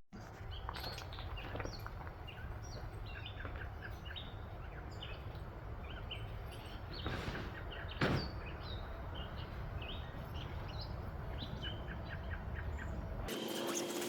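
Many small birds chirping over a steady outdoor background hiss, with a single sharp knock about eight seconds in. Near the end the low rumble drops away and a faint steady hum comes in.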